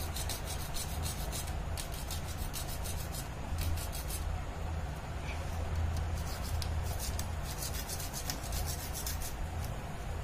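Homemade hand saw, a saw blade fixed in a wooden handle, cutting through PVC pipe with quick back-and-forth rasping strokes. A steady low hum runs underneath.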